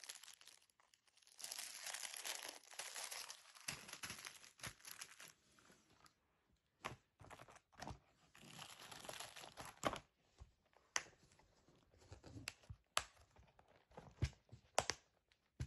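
Thin clear plastic bag crinkling as it is handled, then a series of sharp plastic clicks and taps from the clear plastic bead organizer box being handled, with another short crinkle partway through.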